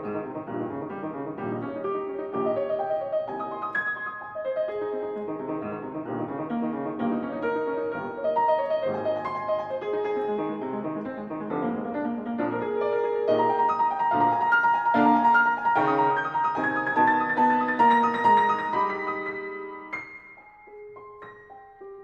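Background piano music, a flowing melody over chords, that grows softer near the end.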